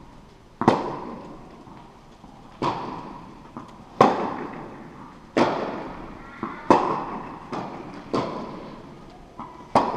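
Tennis balls struck back and forth with rackets in a rally, a sharp pop about every one and a half seconds with softer ball bounces in between. Each hit rings on in the echo of a large indoor tennis hall.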